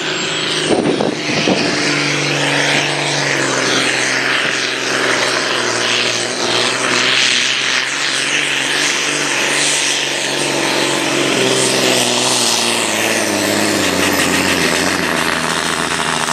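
Ford Powerstar tractor's diesel engine running flat out under load as it pulls a weight sled, with a thin high whine that climbs over the first couple of seconds and then holds steady.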